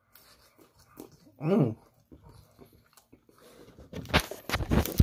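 A single short, high whine from a dog about a second and a half in, the pitch bending as it goes. Near the end comes crunchy biting and chewing of French fries.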